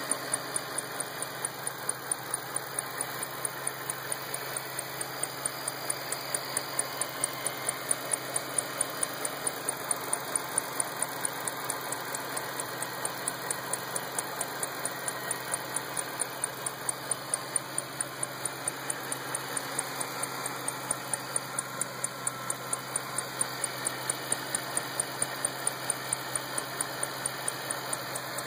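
2008 Shelby GT500's supercharged 5.4-litre V8 running at a steady speed, with a sharp, regular tick repeating several times a second over the engine sound.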